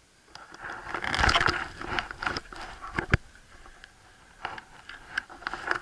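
A dog clambering about a small boat: its feet and claws scrape and scrabble on the hull, with a sharp knock about three seconds in and a few light clicks near the end.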